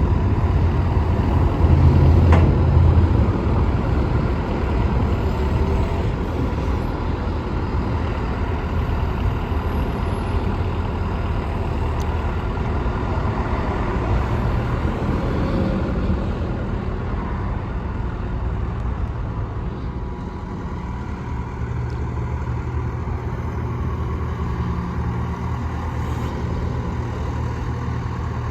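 John Deere 160LC excavator's diesel engine running steadily, a little louder and busier for a second or two near the start.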